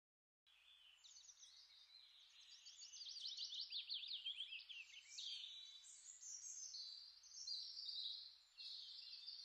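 Faint birdsong: quick trains of high chirps and trills in several short phrases.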